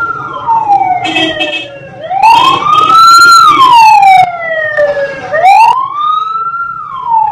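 Fire truck siren wailing as the truck passes close by. The tone rises quickly and falls slowly, in repeating cycles of about three seconds. Short blaring bursts cut in over it about one, two and five seconds in, the loudest around three seconds in.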